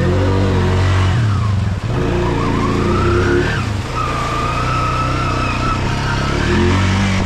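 Honda ATV engine running under throttle as it is ridden, its pitch rising and falling as the rider opens and eases off the gas.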